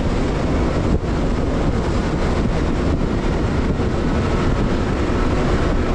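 Can-Am Maverick X3 side-by-side driving off-road: a steady, loud engine drone mixed with ride and wind noise.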